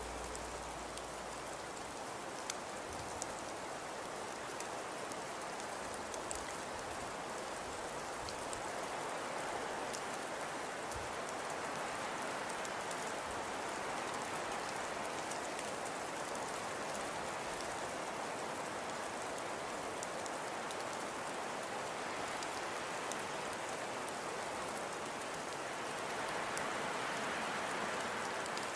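Steady hiss of rain with scattered drop ticks, swelling slightly near the end.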